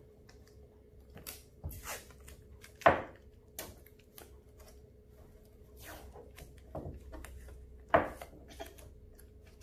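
Masking tape being pulled and torn from the roll in short rasps, with sharp knocks on a wooden tabletop as pieces are pressed down; the two loudest knocks come about three and eight seconds in.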